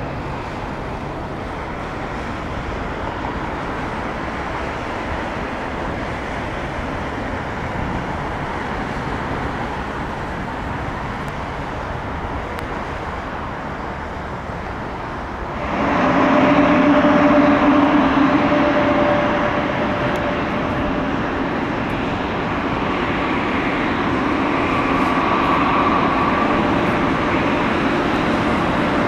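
Jet airliner's engines roaring on its takeoff run, a steady rumble. About halfway through it is replaced suddenly by the louder, closer sound of a Bombardier CRJ regional jet's rear-mounted turbofans at high power, with a steady high whine over the rumble.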